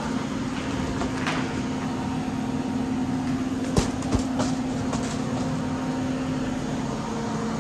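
Steady mechanical hum, with two sharp knocks close together about four seconds in.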